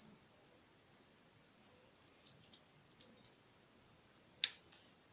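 A few faint small clicks, then one sharper click about four seconds in.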